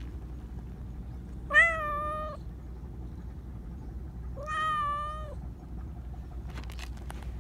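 Black Persian cat meowing twice, two drawn-out calls about three seconds apart, the first starting sharply and loudest.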